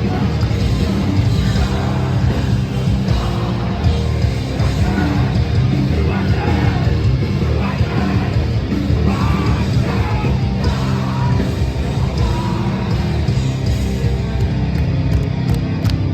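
Metalcore band playing live: heavy distorted guitars, bass and drums with screamed vocals. Near the end, sharp cymbal hits come about three a second.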